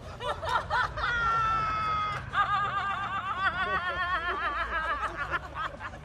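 A woman's high-pitched laughter: a few short giggles, then a long held squeal about a second in, then a long run of quick, wavering cackles.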